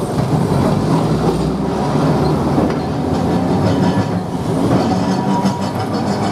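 Vintage electric tram car, one of the original 1904 Sintra Tramway cars, running along the street rails, heard from aboard. There is a steady rumble of wheels and running gear, with clicking from the wheels over the track that comes and goes.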